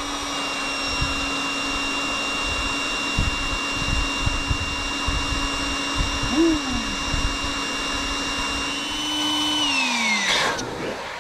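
Electric air pump inflating an air mattress: a steady motor whine. About ten seconds in it is switched off, and its pitch falls as it winds down.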